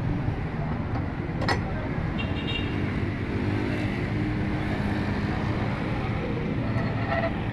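Steady roadside traffic noise with a motorcycle engine passing, and one sharp click about a second and a half in.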